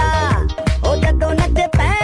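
Punjabi pop song playing: a heavy bass beat about twice a second under a bending synth or vocal melody.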